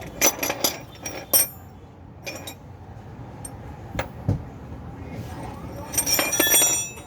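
Hand tools clinking and tapping on metal while a car's stabilizer link is being removed: a few scattered clinks, then a quick run of ringing metallic clinks about six seconds in.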